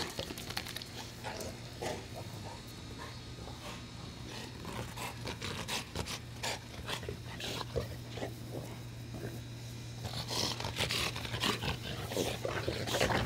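Two young Dogue de Bordeaux dogs play-wrestling with a man in dry grass: irregular scuffling and rustling with the dogs' breathing and play growls, busier in the last few seconds.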